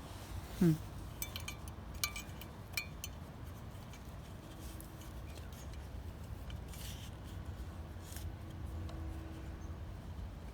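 Small metallic clicks and clinks from handling wiring connectors and hand tools, a few sharp ones in the first three seconds over a steady low hum. Just under a second in, a brief sound drops in pitch, the loudest moment.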